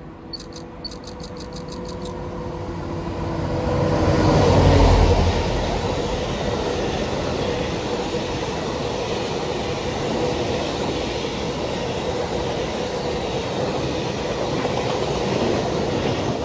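Freight train passing. The locomotive goes by loudest about four to five seconds in, with a deep rumble, then the wagons roll past steadily before the noise eases off near the end.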